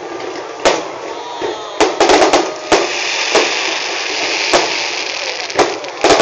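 Fireworks bursting: about ten sharp bangs at irregular intervals, with a quick run of several about two seconds in, over continuous background noise.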